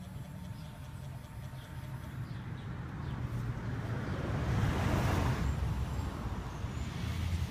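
A road vehicle passing by, swelling to its loudest about five seconds in and then fading, over a steady low hum.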